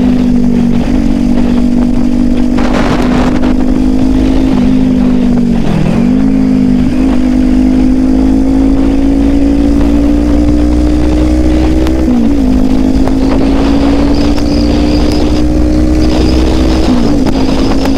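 Kawasaki Ninja 400 parallel-twin engine running under way. Its pitch climbs slowly and dips sharply a few times, as at gear changes.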